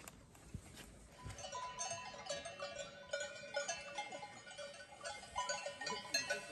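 Clear bell-like notes ring in quick succession at several pitches, starting about a second in over faint outdoor background.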